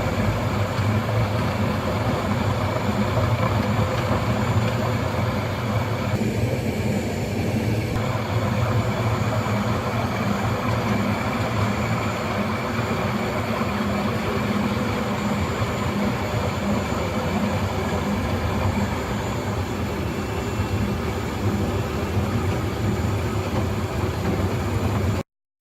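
Airtec BS 825 RC planetary floor grinder running steadily, a continuous mechanical drone with a strong low hum. It cuts off abruptly near the end.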